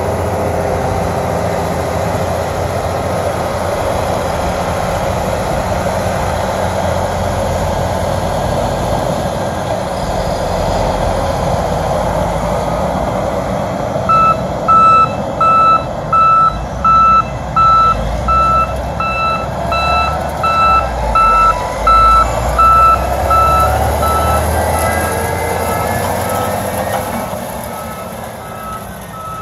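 New Holland motor grader's diesel engine running under load, a steady heavy rumble. About halfway through, a reversing alarm starts beeping at one pitch about one and a half times a second and is the loudest sound. The engine noise fades near the end as the machinery moves off.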